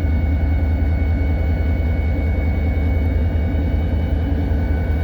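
EMD SD40-2 locomotive's 16-cylinder two-stroke diesel running steadily, heard from inside the cab: a deep, even drone with a thin steady high whine over it.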